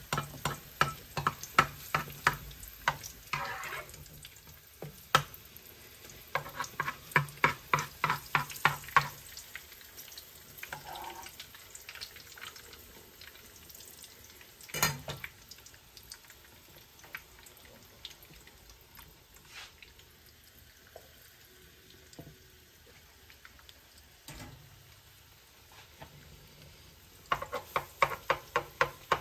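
Egg-coated fish frying in hot oil, with a faint steady sizzle. Over it come bursts of quick, even utensil strokes, about three a second, in the first nine seconds and again near the end, and a single sharp knock about halfway.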